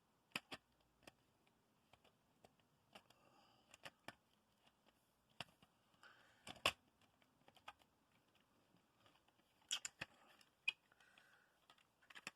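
Faint, scattered light clicks and taps of a plastic smoke detector being handled, the sharpest about six and a half seconds in and again around ten seconds.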